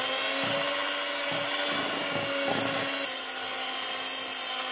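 Electric hand mixer running steadily at speed, its beaters whirring through thick cake batter, with a slight drop in pitch and level about three seconds in.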